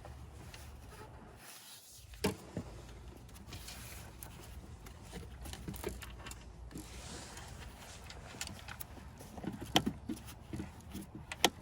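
Hand tools and metal parts being handled while a coolant hose clamp is fitted and tightened: scattered light metallic clicks and knocks, with a sharp tap about two seconds in and a cluster of clicks near the end.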